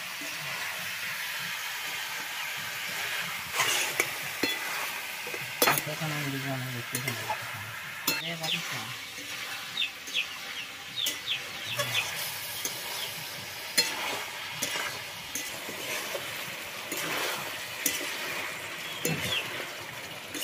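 Chicken pieces frying in masala in a metal wok, with a steady sizzle and a metal spatula scraping and knocking against the pan as it is stirred.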